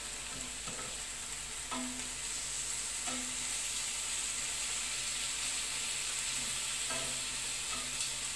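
Chicken breast pieces sizzling in a hot ribbed grill pan, a steady hiss, as metal tongs turn them, with a few short clicks of the tongs against the pan.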